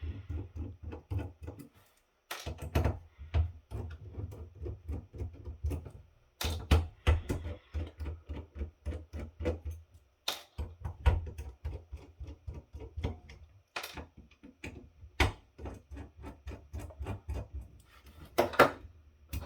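Screwdriver backing screws out of a metal faceplate: quick runs of sharp clicks and scraping, broken by brief pauses.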